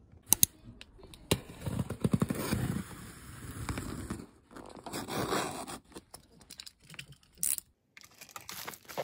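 A cardboard shipping box and plastic bubble-wrap packaging being handled and opened: tearing, scraping and crinkling in several short bouts, with a few sharp clicks.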